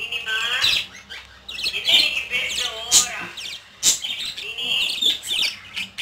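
Pet budgerigar chattering and warbling: a busy run of squeaky, wavering whistles mixed with sharp clicks, the budgie's talking chatter.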